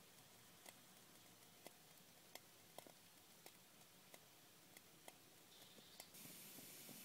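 Near silence with faint, irregular ticks about once or twice a second, and a soft steady hiss that sets in near the end.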